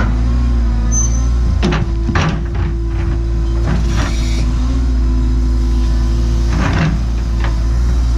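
Cat 314E excavator's diesel engine running steadily under work, with a few sharp knocks from the bucket and thumb handling rock, the loudest about two seconds in and near the end.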